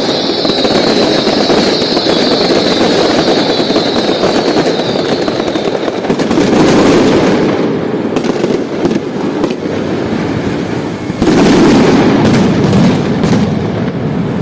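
A dense, continuous barrage of firework bangs and crackles, with a high shrill whistle over it for the first six seconds and a louder burst about eleven seconds in.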